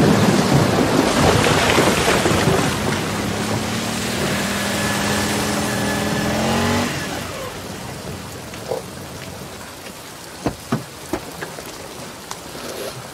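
Heavy rain falling on a car and the street. A small car's engine hums underneath, its pitch rising slightly, then stops about seven seconds in; after that the rain is softer, with a few sharp knocks near the end.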